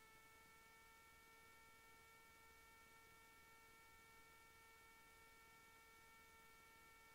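Near silence: only a faint, steady electrical hum of one pitch with its overtones, over a low hiss.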